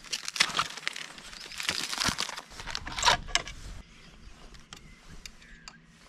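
Protective packaging wrap crinkling and rustling as it is pulled off a new bicycle's handlebar, then, about four seconds in, a quieter stretch with a few faint clicks of a hex key working the stem bolts.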